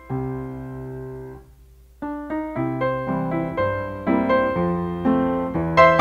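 Solo piano music: a held chord dies away over the first second and a half, then after a short gap a new phrase of notes begins about two seconds in and runs on at an even pace.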